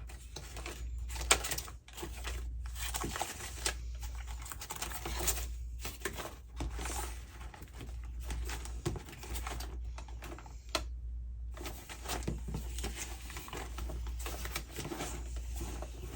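Paper ephemera being rustled and shuffled while hands sort through a box of paper pieces, with many light taps and clicks, over a steady low hum.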